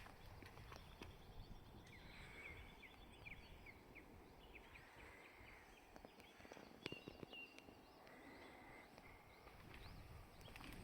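Near silence: quiet rural outdoor ambience with faint, scattered bird chirps and a few soft clicks.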